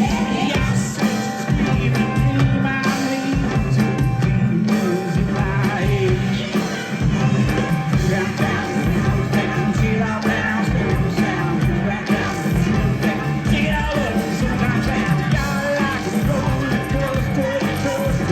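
Live rock band playing, heard from the audience: loud electric guitars, bass and drums, with singing.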